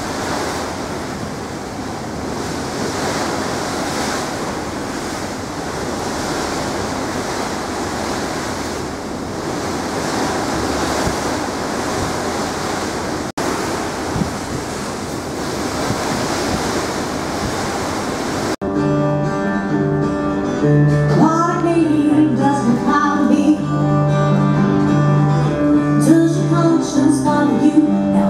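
Steady rush of wind and sea noise on a ferry crossing, then an abrupt cut about two-thirds of the way through to music with singing.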